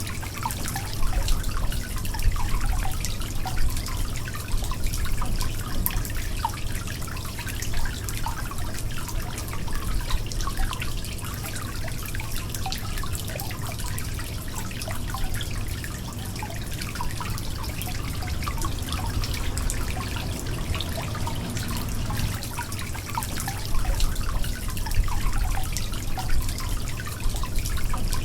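Water leaking: continuous trickling with many small irregular drips and splashes over a steady low rumble.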